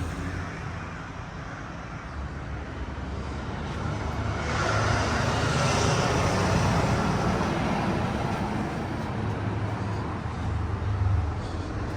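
Street traffic: a car passing, its tyre and engine noise building about four seconds in, loudest through the middle and easing off near the end, over a steady low rumble.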